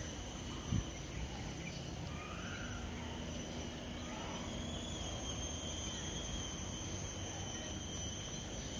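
Steady outdoor ambience of a tropical wooded path: a constant high-pitched insect drone over low rumbling noise, with a single soft thump just under a second in.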